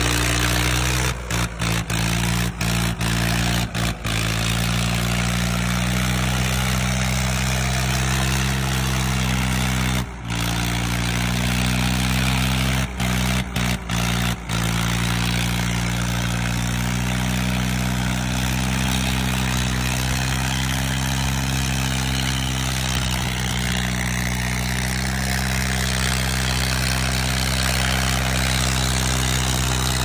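Diesel engines of two farm tractors, a Swaraj 855 FE and a John Deere, running hard under heavy load while pulling against each other on a chain. The engine note stays steady, and the sound briefly cuts out a few times in the first half.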